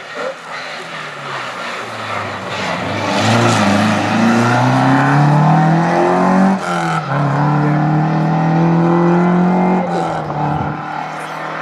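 Classic rally car accelerating hard past, its engine pitch climbing through one gear. About seven seconds in there is a brief break for an upshift, then the pitch climbs again before the car fades away.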